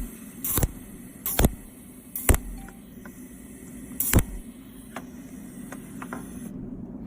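Cold welding machine firing spot welds: sharp snapping cracks as each pulse discharges, several at uneven intervals about a second apart, over a steady low hum.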